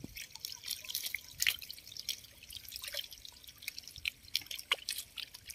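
Many small fish flapping and thrashing in shallow water, making a dense, irregular scatter of small splashes and drip-like plips.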